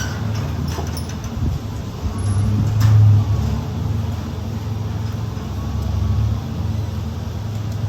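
School bus running with a steady low engine and road rumble, with a few short knocks and rattles.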